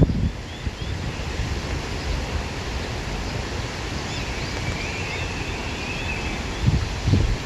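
Wind blowing through grass, with low gusts buffeting the microphone at the start and again about seven seconds in. Faint, short high chirps come and go in the background.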